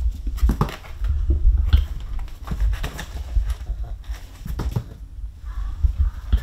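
A Maine Coon kitten's paws patter and thump on a wooden floor as it scampers about, in quick irregular knocks over a low rumble.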